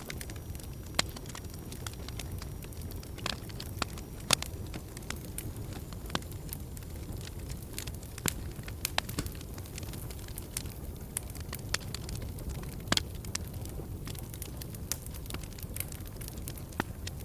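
Fire burning in a fireplace: a steady low rumble of flames with irregular crackling and popping, a few louder snaps scattered through.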